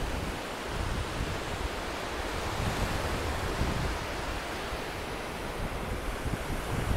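Surf breaking and washing up on a sandy beach, a steady rush of water, with wind rumbling on the microphone.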